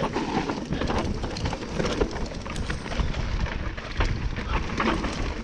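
Mountain bike riding fast down a dirt woodland trail: tyres rolling over dirt and leaves and the bike rattling and knocking over bumps, with a steady low rumble of wind noise on the microphone.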